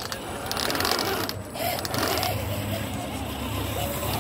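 RC scale crawler's small electric motor and gearbox whining as it creeps over wooden planks, cutting out briefly about a second and a half in, then running on.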